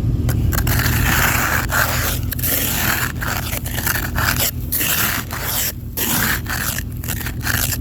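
Ice scraper scraping ice off a car's glass in a run of repeated strokes with short breaks, roughly one to two a second. A car engine idles steadily underneath.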